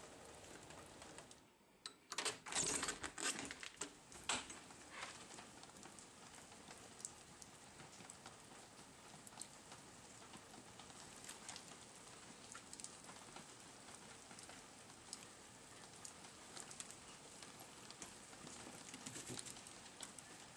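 Steady rain pattering on a wet stone patio and steps. A burst of loud clicks and knocks comes about two to four seconds in.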